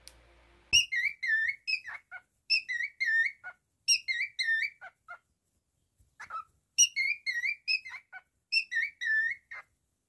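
Male cockatiel whistling its song: repeated phrases of clear, swooping whistled notes, with short pauses between phrases. It is preceded at the very start by a single sharp beak snap.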